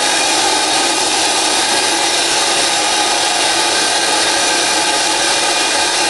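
Compressed-air-operated wet and dry vacuum cleaner running: a steady, loud rushing hiss of air through the hose.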